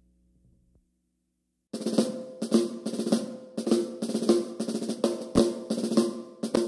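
Background music: a drum-led track with a steady beat of about two strong hits a second, starting after near silence a little under two seconds in.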